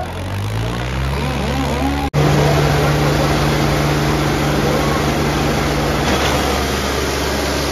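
Tractor diesel engine running steadily. It cuts off abruptly about two seconds in and comes back louder and steady, with a slight drop in pitch near the end.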